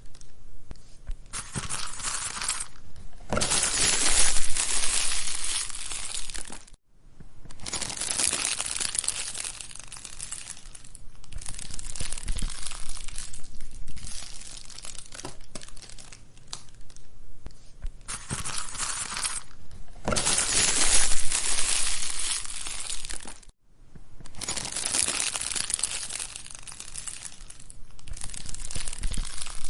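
Wood fire crackling and popping in a fireplace, dense and continuous, swelling louder twice. It cuts out for a split second twice.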